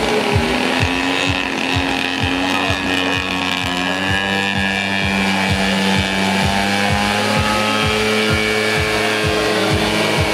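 Engine drone from radio-controlled scale Fokker D.VII biplanes flying past, its pitch slowly shifting as they pass, over background music with a steady thumping beat about three times a second.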